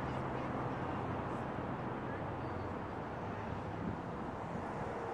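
Steady outdoor city ambience: an even, low rumble like distant traffic, with a faint low hum that fades about halfway through.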